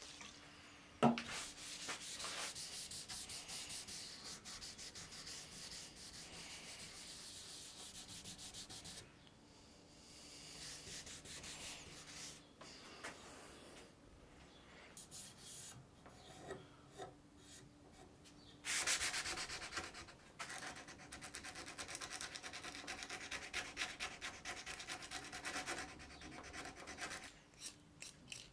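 Hand sanding of a guitar's headstock veneer with sandpaper: rapid back-and-forth rubbing strokes in runs of several seconds with short pauses between them, and a single sharp knock about a second in.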